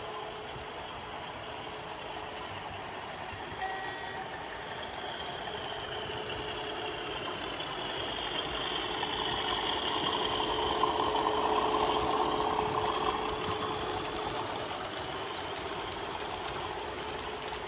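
OO gauge model train running on the layout, a steady motor hum and wheel noise on the track that grows louder towards the middle as it passes close, then fades away.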